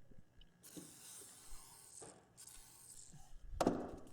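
A composite impact-wrench vane rubbed on 400-grit sandpaper over a flat surface: two long, hissing sanding strokes, then a sharp knock near the end.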